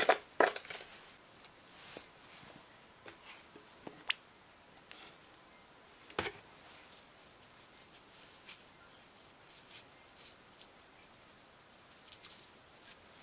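Fingers working potting soil into a thin plastic cup around a petunia seedling: soft scratching and rustling with a few sharp taps of the cup, the sharpest just after the start and about six seconds in.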